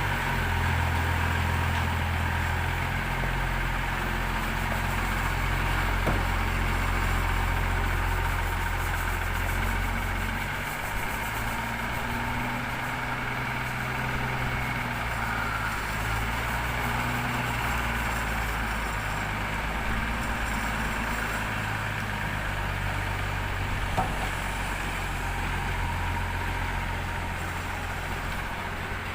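Engine of the vehicle towing the boat trailer running steadily, its low hum shifting pitch about ten seconds in, with a couple of brief knocks.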